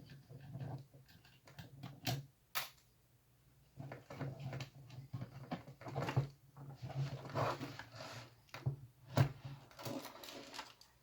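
Scraping out corrosion residue from a cuckoo clock's battery holder contact with a small tool: irregular scratchy scrapes with a few sharp clicks, two of them about two seconds in and one near the end.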